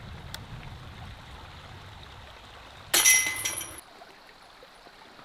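Chains of a disc golf basket rattling as a putted disc strikes them: a sudden metallic jingle about three seconds in that rings and dies away in under a second.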